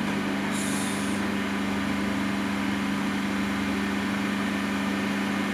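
A steady mechanical hum with a low drone, over a broad hiss. A short high hiss comes in about half a second in and lasts about half a second.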